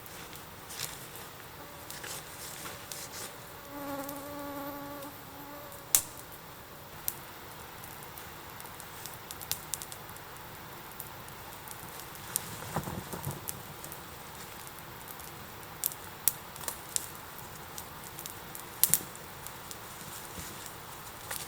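A flying insect buzzing past for under two seconds, a steady low hum about four seconds in. Scattered sharp clicks and snaps come through the rest, the loudest about six seconds in and near the end.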